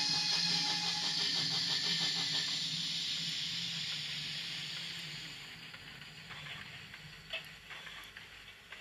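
Sound module of a model Saxon IV K narrow-gauge steam locomotive (99 1599-2) playing rapid chuffing with steam hiss over a low hum as the running model passes by, fading away as it goes. A couple of short clicks near the end.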